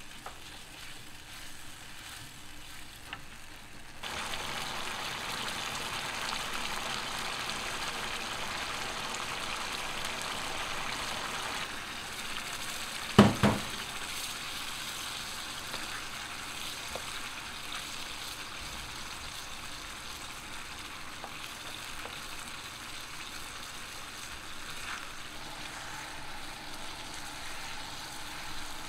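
Food sizzling in a hot pan as a steady hiss that grows louder about four seconds in, with one sharp knock about thirteen seconds in.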